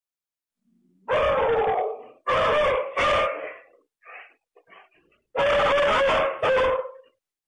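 A terrified dog yelping and howling, five loud drawn-out cries: three close together in the first half and two near the end, with a few faint short sounds between them.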